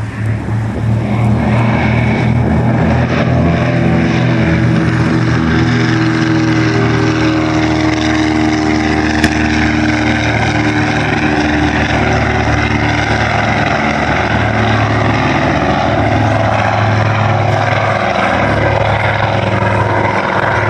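The twin Pratt & Whitney R-1830 radial engines of a PBY Catalina flying boat running hard on its takeoff run across the water and climbing away: a loud, steady propeller drone that swells about a second in, its pitch shifting slightly as the aircraft passes.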